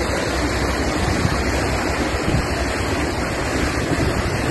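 Floodwater rushing across a road: a loud, steady rush with no let-up.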